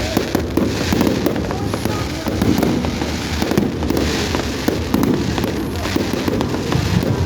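Fireworks display with a dense, unbroken run of bangs and crackling bursts.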